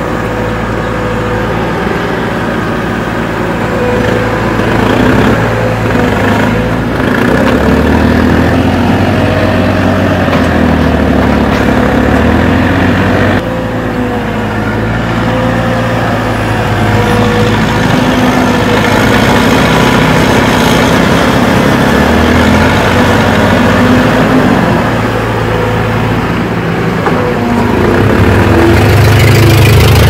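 Diesel engines of a mini excavator and a Cat wheeled excavator running as they dig, the engine note shifting up and down with the hydraulic load. There is a sudden drop in level a little under halfway through.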